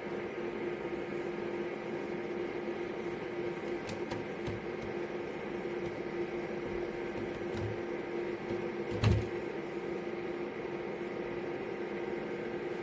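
BREEZOME dual-semiconductor (thermoelectric) dehumidifier running, its small fan giving a steady hum on one held pitch. A few faint clicks, then a brief thump about nine seconds in.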